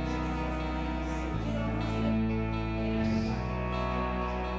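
Soft background music with held chords, the bass note changing about every one and a half to two seconds.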